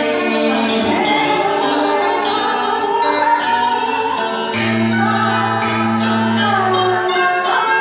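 Music with singing: a sung melody over instrumental accompaniment, with some long held notes.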